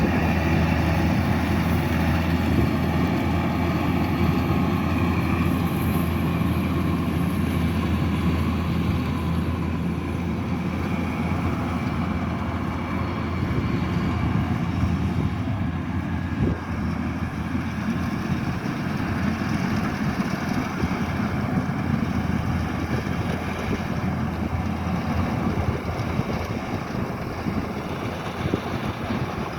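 Kubota DC-108X combine harvester running steadily, a continuous low engine drone without pauses or changes in pace.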